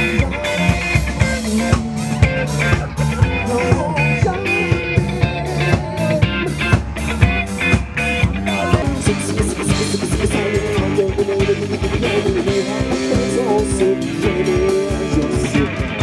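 Rock band playing: electric guitar over a drum kit keeping a steady beat.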